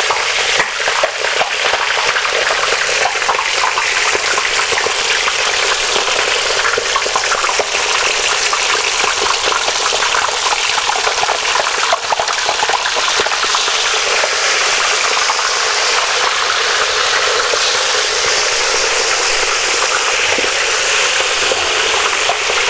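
Fish deep-frying in hot oil in a plough-disc pan: loud, steady bubbling and crackling. The fish were just put in, and the oil bubbles hard until they are crisp enough on one side to turn.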